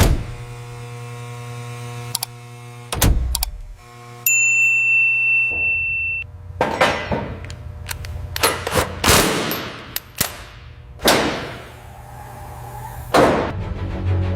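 A string of edited sound effects: a low steady hum broken by a few sharp clicks, then a single held high beep about four seconds in, then a series of whooshes.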